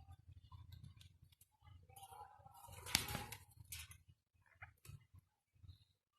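Pet ring-necked parakeet making faint scattered clicks and taps, with a brief soft squeak and one sharper click about three seconds in.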